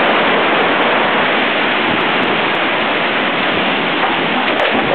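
Heavy rain and wind in a storm: a loud, steady rushing noise.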